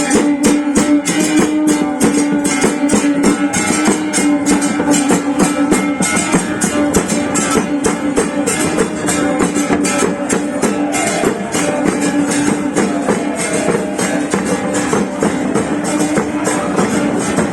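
Music played by a group: plucked string instruments over a fast, even percussion beat, with one note held steadily throughout.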